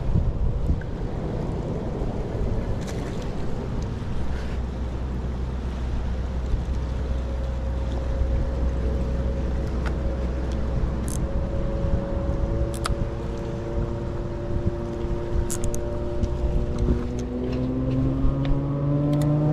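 Steady low rumble of motor traffic, with an engine rising in pitch as it speeds up over the last few seconds, and a few light clicks.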